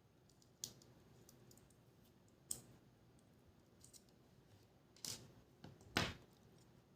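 Scattered light clicks and taps of a small screwdriver and tiny parts handled while a GoPro Hero 5 Black camera is taken apart: about five sharp clicks, the loudest two near the end.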